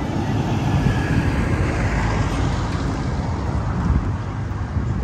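A Scania lorry pulling a flatbed trailer drives past close by. Its diesel engine and tyres make a loud, steady rumble.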